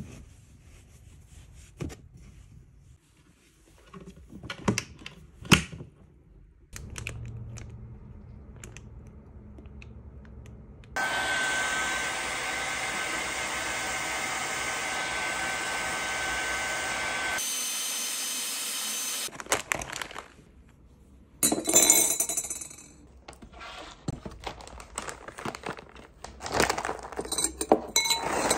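Handheld hair dryer running steadily with a fixed whine for about six seconds, then changing in sound briefly before it shuts off. Before it, scattered light knocks and handling noises; after it, irregular clinks of a metal spoon against a glass tumbler.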